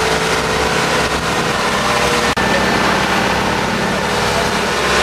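Outrigger boat's engine running steadily under way, with rushing wind and water noise. A brief click and dropout cut in about halfway.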